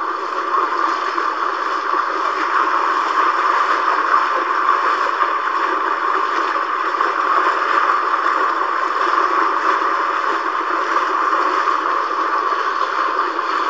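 Steady rushing noise of a boat moving through floodwater, even and unbroken, with no distinct strokes or pitch.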